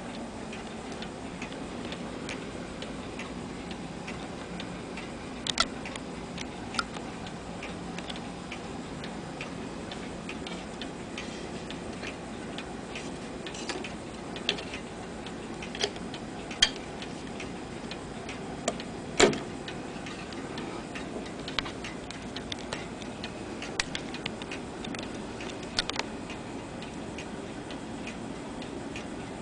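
Black Forest clock's movement ticking, with a few louder, sharper clicks at irregular moments.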